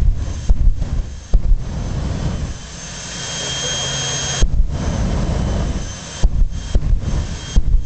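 Jet dragster's turbine engine running with the afterburner lit, a loud steady rush with a high whine over it. The sound is broken several times by brief cut-outs and heavy low thumps on the microphone.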